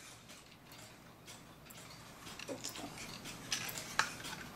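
Wooden clock frame being handled and pressed together by hand: faint rubbing with a few light clicks and knocks, the sharpest a little before the end.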